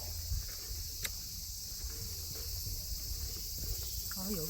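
A steady, high-pitched chorus of insects in the trees, with one short click about a second in. A person's voice starts near the end.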